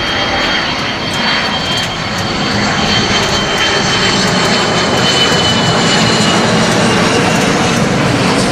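Jet airliner on final approach to land: a steady high engine whine over a broad rush of jet noise, growing a little louder over the first few seconds, with the whine fading about two-thirds of the way through.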